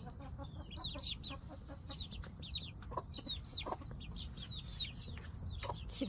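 Chicks peeping over and over in short, high, falling chirps, several a second, while an Ogol (black-boned) mother hen clucks softly a few times.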